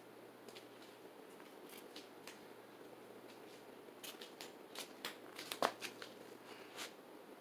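52-inch Hampton Bay St. Claire ceiling fan running on high in reverse, a faint steady whir. In the second half comes a run of irregular sharp clicks, the loudest a little past the middle.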